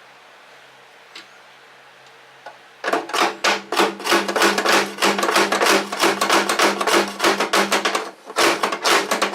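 A hammer tapping quickly and repeatedly on a steel roll pin being driven into a snow thrower axle, several strikes a second, starting about three seconds in with a brief pause near the end. The pin is not going in.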